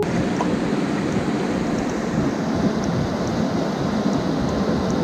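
Shallow river water rushing over and around boulders, a steady close-up rush.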